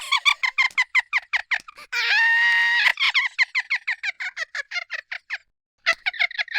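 A very high-pitched laugh in quick, rapid pulses, with one long squealing note held for about a second near the start. It stops briefly about five and a half seconds in, then starts up again.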